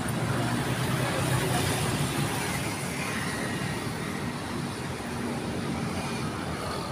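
Steady traffic noise with motorcycle engines running, a continuous hum and rumble with no single event standing out.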